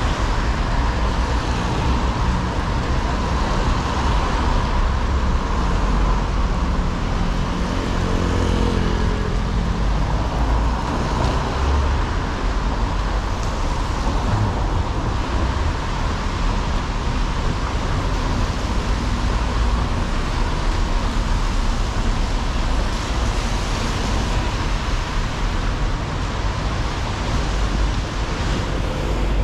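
Traffic on a wet city street: a steady wash of tyre and engine noise. One vehicle's engine note stands out for a couple of seconds about eight seconds in.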